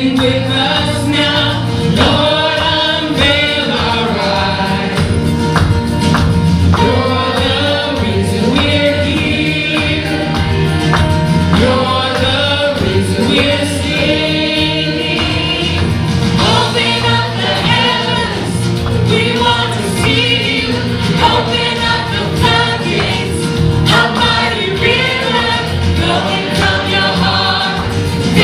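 Praise team of men and women singing a contemporary worship song together into microphones, over amplified backing music.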